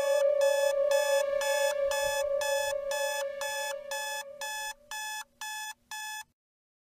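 Electronic alarm clock beeping about twice a second over a fading held tone. The beeps stop suddenly near the end.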